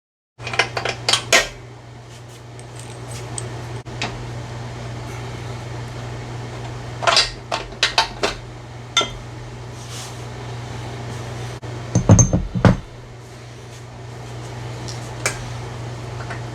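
Steel tools and hoist parts clanking as a wrench works the 15/16 bolts and the old hydraulic ram is pulled from the engine hoist. There are scattered sharp metallic clanks, with a louder group of knocks and low thumps near the end, over a steady low hum.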